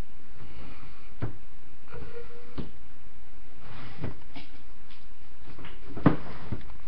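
A few separate knocks and bumps, four in all, the loudest about six seconds in.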